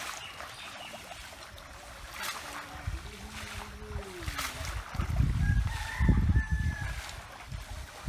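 A rooster crowing, one long call about two-thirds of the way through, with another bending call a little before it. Loud low rumbling noise comes in bursts at the same time and is the loudest sound.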